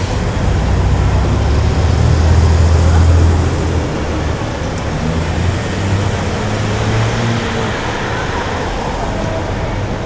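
Road traffic on a busy city street: engines of passing vehicles running, with a low rumble that swells over the first few seconds and eases off after about three and a half seconds.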